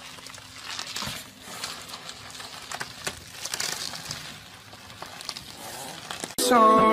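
Plastic bubble wrap crinkling and rustling in many small irregular crackles as a Chihuahua wrapped in it wriggles along the carpet. Music cuts in loudly near the end.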